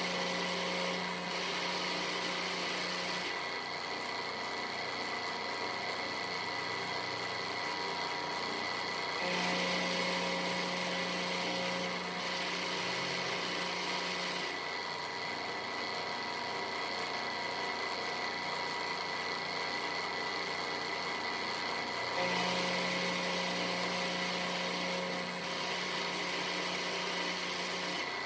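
Onefinity CNC router's spindle running steadily while its end mill cuts an aluminum pocket. The sound changes in a repeating cycle every ten seconds or so, a low hum coming and going as the cutter works its way around the pocket.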